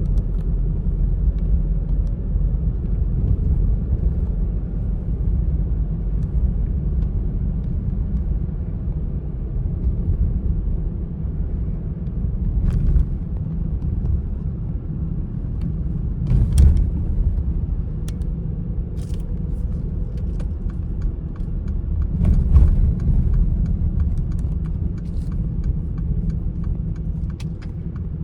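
Car driving along a road: a steady low rumble of engine and tyres, with a few short knocks, the loudest about halfway through and again a few seconds later.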